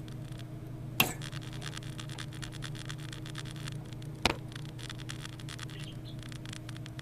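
Hands removing a part inside a desktop computer case: light scraping and tapping of plastic and metal, with two sharp clicks, about a second in and again about three seconds later. A steady low hum sits underneath.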